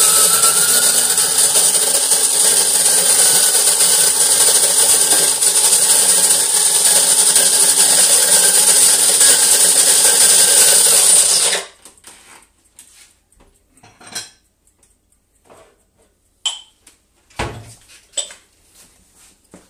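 Electric burr coffee grinder, set to a medium grind size 6, grinding coffee beans with a loud steady whir that cuts off suddenly about twelve seconds in. A few light clicks and knocks of handling follow.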